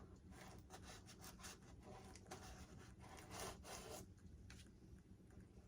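Faint, irregular scraping and rubbing of a drill bit being worked through foam to bore a channel for wiring, easing off near the end.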